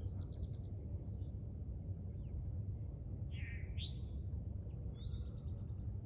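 Songbirds singing in short, high phrases: a quick trill at the start, a swooping two-part phrase a little past halfway, and another trill near the end, over a steady low rumble.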